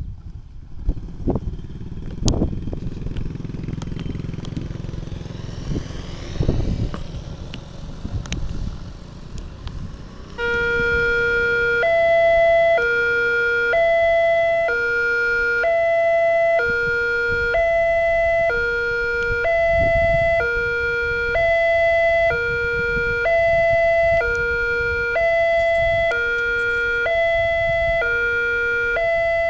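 Motorcycles passing over a level crossing. About ten seconds in, the crossing's electronic warning alarm starts: two tones alternating in a steady ding-dong, each held about three-quarters of a second, signalling that a train is approaching and the barriers are closing.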